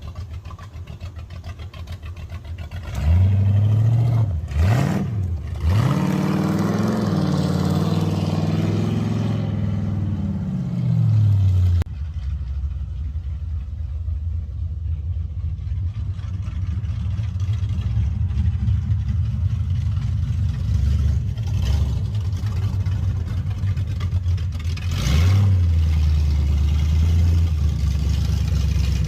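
Chevrolet 454 big-block V8 in an 1982 Camaro drag car, through an aftermarket exhaust, running on a newly installed camshaft. It idles, is blipped a couple of times about three seconds in, rises and falls in pitch through a longer rev, runs steadily at a lower speed, then revs again near the end.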